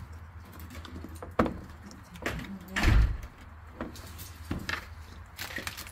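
Plastic clicks and knocks from hands working a headlight's wiring harness connector and plastic housing, with a louder thump about three seconds in.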